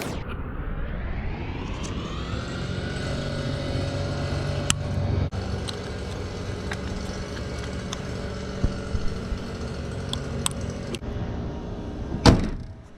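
Car engine running at idle with a misfiring ignition coil pack, now moved to cylinder 2. A sharp knock comes near the end.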